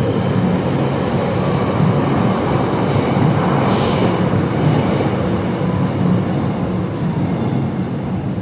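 Metro train running on the rails: a loud, steady rumble of wheels and motors, with a couple of brief high-pitched metallic sounds about three to four seconds in.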